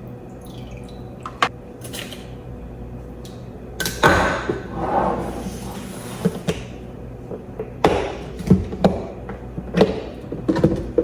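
Cooking pot being handled: scattered knocks and clicks of utensils against the pot, with a rushing, stirring-like noise about four seconds in that fades over two seconds.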